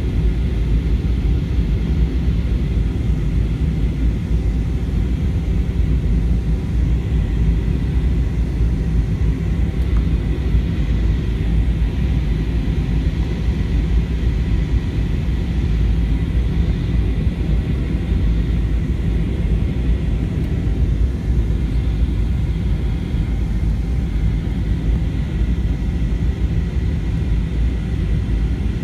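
Steady cabin rumble inside an Airbus A320-200 airliner during its descent on approach, with engine and airflow noise and a faint steady high whine.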